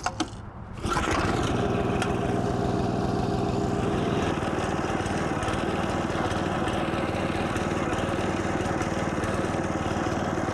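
Small petrol engine of a spindle (drum) core aerator starting about a second in, then running steadily as the machine rolls over the turf with its tines spinning to pull soil plugs.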